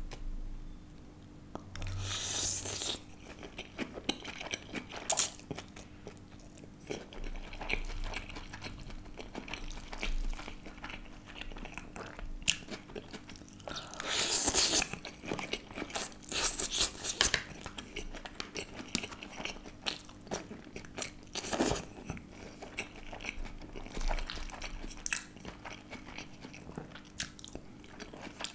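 Close-miked chewing of flat noodles, with short, louder bursts of mouth noise every few seconds.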